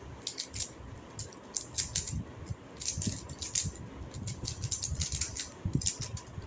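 Two plastic 3x3 speed cubes being turned fast by hand during a solve: an irregular stream of clicks and clacks as the layers snap round.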